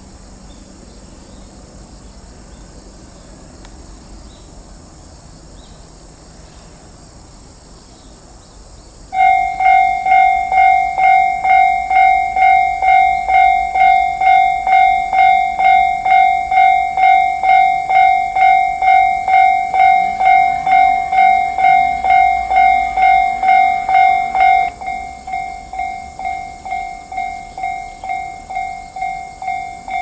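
Japanese level-crossing warning bell: an electronic clang that starts about nine seconds in and rings about twice a second. Near the end it drops to a lower volume, with the barriers now down, as these crossings do once the gates have closed.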